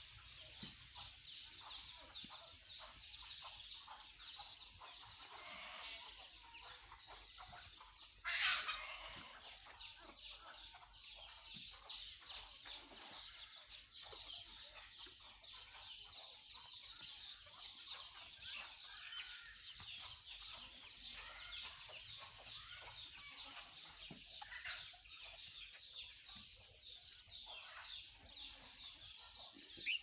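Farmyard chickens clucking amid a steady chatter of small bird chirps, with one brief, loud sharp sound about eight seconds in.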